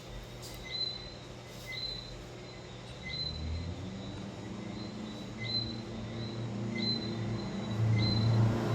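A short high chirp repeating regularly, about every second and a half, like a bird's call, over a low rumble that grows louder toward the end.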